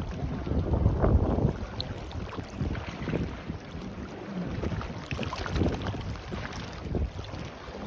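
Wind buffeting the microphone in gusts, over waves washing on the shore, with a faint hum from a motorboat engine out on the water.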